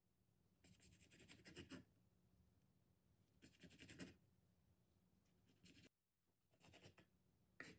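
Kitchen knife slicing through a baked sticky rice cake with a crumbly red bean topping, crackling through the crumbs and scraping down onto a wooden cutting board. About five short, faint cutting strokes, one every second or so.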